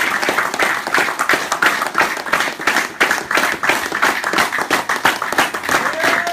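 A small group applauding: many hands clapping in a dense, steady, uneven stream.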